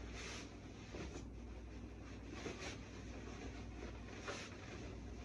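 Pillowcase and pillow rustling as the pillow is worked into the case: several soft fabric swishes, over a low steady hum.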